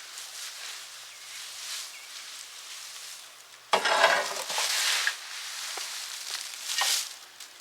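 Dry, mower-chopped leaves rustling and crunching as they are scooped up by hand, with a loud burst of rustling about halfway through and a shorter one near the end.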